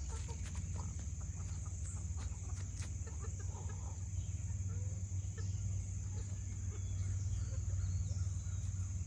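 Chickens clucking softly, with faint short calls scattered through, over a steady low hum.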